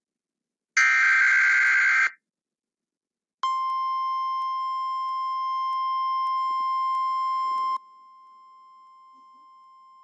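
An Emergency Alert System SAME digital header burst: a harsh data screech lasting just over a second, the last of a series. After a short gap, a steady single-pitch warning alarm tone in the style of NOAA Weather Radio's 1050 Hz tone starts about three and a half seconds in. Near eight seconds it drops sharply in level and carries on faintly.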